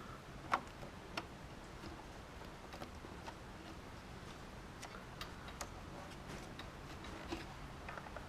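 Light, irregular clicks and taps of hands working at a plastic wiring connector and its pins, spaced unevenly several seconds apart, the sharpest about half a second and a second in.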